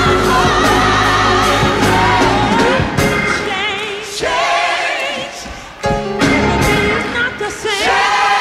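Gospel music: a lead voice sings held notes with wide vibrato and gliding runs over a choir and backing band.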